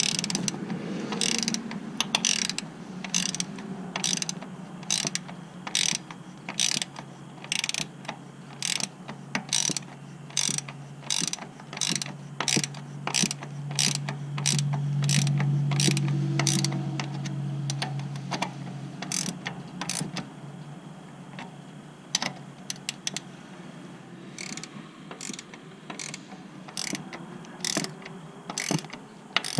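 Ratcheting combination wrench clicking in short, even bursts, a little under two a second, as it runs down a muffler bracket bolt on a Harley-Davidson Road Glide; the bursts thin out over the last third. A low hum swells and fades in the middle.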